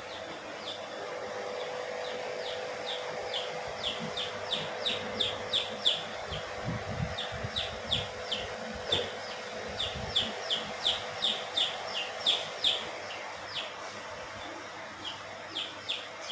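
Small poultry chicks peeping: a steady run of short, high, falling peeps, two or three a second with a few brief pauses, over a steady low hum.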